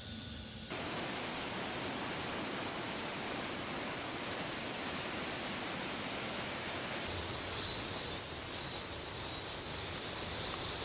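Waterfall rushing, a steady even roar that starts abruptly just under a second in. High insect trilling joins over it about seven seconds in.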